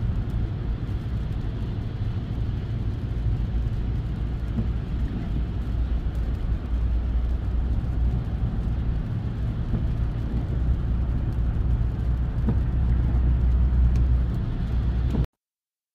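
Cabin sound of a 2023 Ram 1500 GT cruising at a steady 55 mph on its stock exhaust: a steady low exhaust drone under road and tyre noise, heard from inside the cab. The sound cuts off abruptly near the end.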